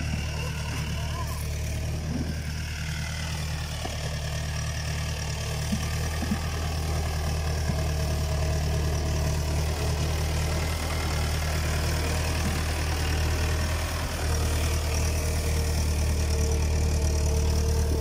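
Massey Ferguson 155 tractor engine running steadily, getting somewhat louder about fourteen seconds in.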